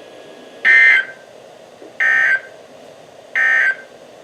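Emergency Alert System end-of-message code on NOAA Weather Radio: three short bursts of two-tone digital data, about 1.3 s apart. They mark the end of the warning broadcast.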